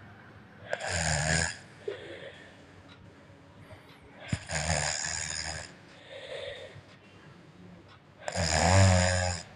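A sleeping child snoring: three loud snores about four seconds apart, each lasting about a second, with softer breaths between.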